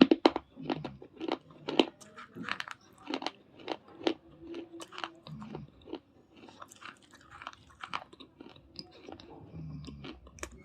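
A person biting and chewing hard baked clay and slate pencil pieces. Sharp crunches come about twice a second for the first five seconds, then give way to softer, quicker chewing crunches.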